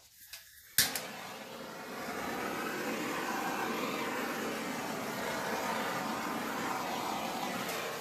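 Hand-held hair dryer switched on with a click about a second in, blowing steadily, and cut off near the end.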